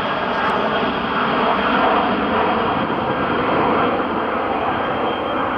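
Boeing 767-300 airliner's twin jet engines as it climbs out after takeoff: a loud, steady roar.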